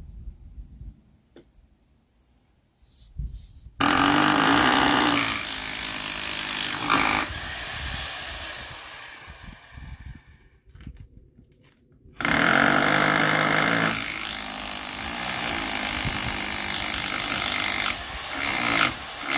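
Power drill running in two long runs under load, starting about four seconds in, its motor whine sagging and wavering in pitch as it bites, with a short pause between the runs.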